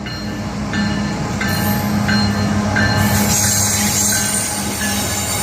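Mixed freight train passing close by: a steady low diesel-locomotive drone under the rumble of rolling railcars, with a few short high-pitched wheel squeals in the first few seconds.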